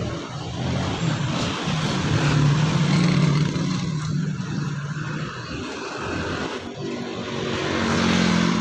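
A motor engine running steadily with a low hum. It grows louder about two to three seconds in and again near the end.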